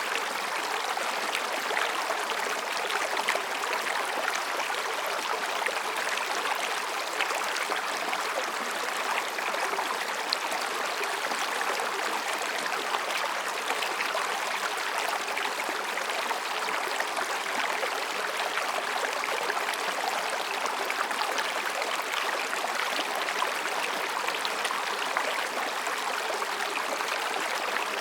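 Mountain stream babbling and splashing over and between rocks, a steady, even rush of water.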